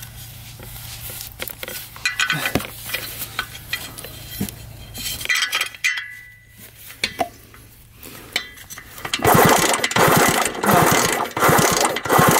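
Faint clicks of handling, then from about nine seconds in a loud ratcheting clatter: rapid mechanical clicks in repeated strokes a little under a second apart.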